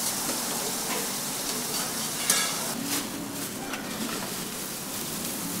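Sliced onions and oil sizzling steadily on a hot flat-top griddle, with one brief sharp sound about two seconds in.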